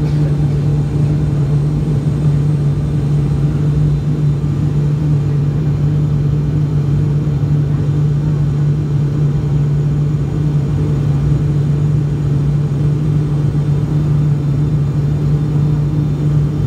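Cabin noise of an ATR 42-600 in flight beside its Pratt & Whitney PW127 turboprop: the engine and propeller drone with a strong hum holding one pitch over a steady rumble. The aircraft is descending toward landing.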